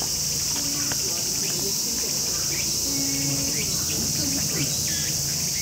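Steady high-pitched insect chorus, with a few faint short calls over it about four to five seconds in.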